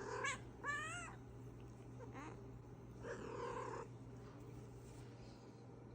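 A house cat meowing four times: two rising-and-falling calls in quick succession, a short one about two seconds in, and a longer, rougher cry about three seconds in. They are plaintive cries of a cat upset at being left.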